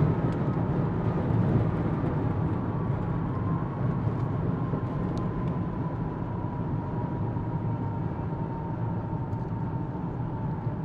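Lockheed U-2's jet engine running on the runway, heard from a car following close behind: a steady low rumble with a faint whine that slowly drops in pitch.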